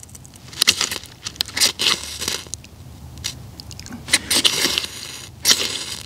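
Spine of a Victorinox Venture knife scraped down a small ferrocerium rod in several short, rasping strokes, throwing sparks into tinder.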